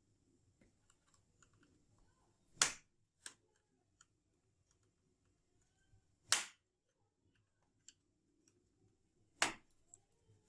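Plastic locking clips of a Lenovo Ideapad 330's bottom cover snapping loose as the cover is pried off: three sharp clicks a few seconds apart, with a smaller one shortly after the first.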